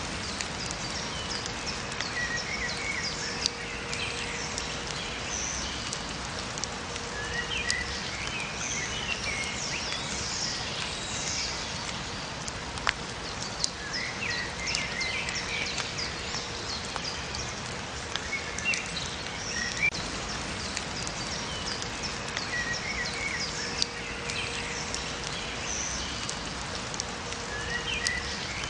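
Steady rain falling, with songbirds chirping and trilling on and off throughout and a few sharp drip-like taps.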